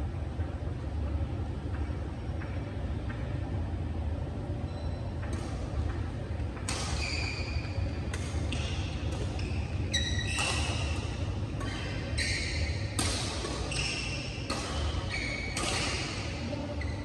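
Badminton rackets striking a shuttlecock in a fast rally. Each hit is a sharp ping with a short ring, coming about once or twice a second from about five seconds in. The hall makes the hits echo.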